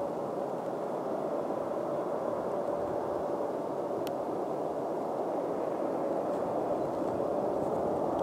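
Fokker 50's twin Pratt & Whitney PW125B turboprop engines heard from the ground as the plane approaches on final with gear down: a steady drone with a faint constant tone, growing slowly louder.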